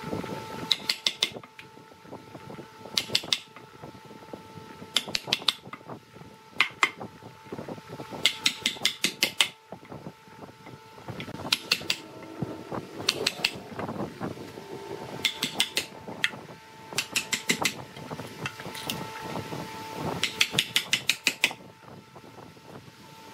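Wood lathe running with a steady motor hum, broken every second or two by short bursts of rapid sharp clicks as a turning tool meets the spinning wood.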